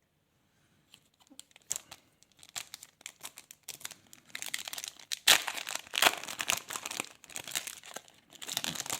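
Trading card pack wrapper crinkling and being torn open: irregular crackling from about a second in, loudest in the middle.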